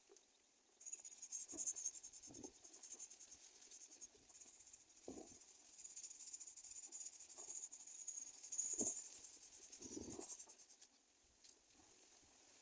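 Faint insect chirring, a high rapid buzz that starts about a second in and stops near the end, with a few soft rustles or knocks.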